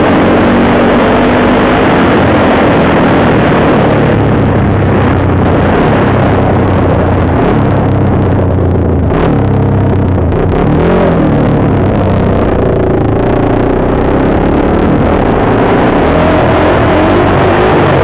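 Quad bike (ATV) engine running under throttle, with a steady rushing noise over it. About halfway through the engine briefly drops off, then its pitch climbs again.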